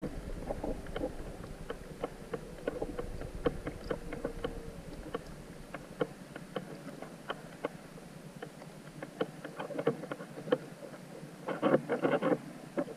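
Underwater ambience: scattered sharp clicks throughout, a faint steady hum for the first few seconds, and a short cluster of louder crackling near the end.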